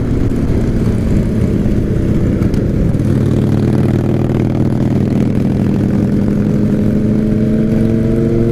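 Motorcycle engine running steadily, its pitch rising slowly over the last few seconds.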